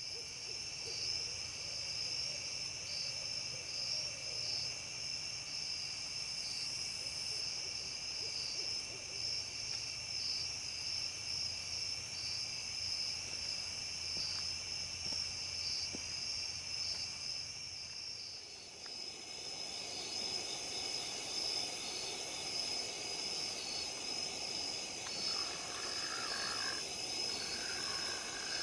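Night-time insect chorus of crickets and katydids: a steady high-pitched trill that pulses evenly throughout. A few short lower notes come in near the end.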